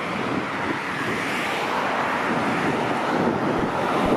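Road traffic on a busy four-lane arterial road: a steady rush of car tyres and engines going by, getting a little louder toward the end.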